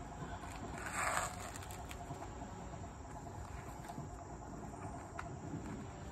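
Insects chirring steadily in the background, with a short, louder noisy sound about a second in.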